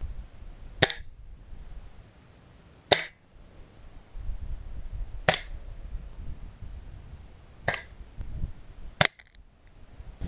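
BSA Scorpion .22 break-barrel spring-piston air pistol firing five sharp shots, each about two seconds apart.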